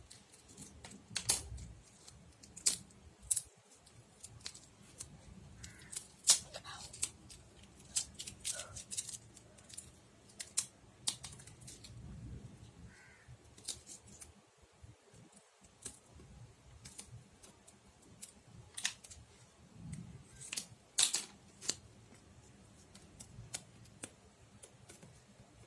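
Scissors snipping at irregular intervals, each cut a short sharp click, with quieter handling rustles between them.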